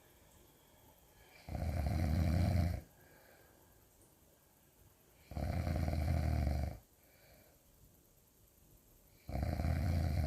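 Really loud snoring: three long snores about four seconds apart, each lasting a little over a second, with quiet breathing between them.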